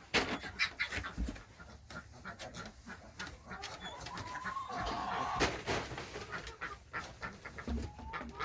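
Chickens clucking and calling, with one drawn-out call from about three and a half to five and a half seconds in, over scattered knocks and rustling.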